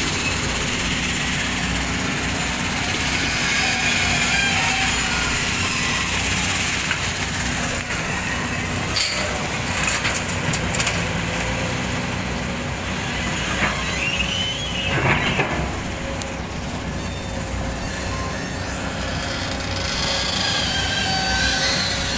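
JCB tracked excavator's diesel engine running steadily under load as it digs sand and gravel and swings to a tipper truck. Partway through, a short run of gravel clatters out of the bucket.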